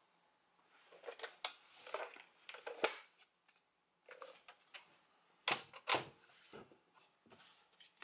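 Hard plastic toy pieces being handled: scattered light clicks and knocks, with a sharper click about three seconds in and two louder clacks a little past halfway.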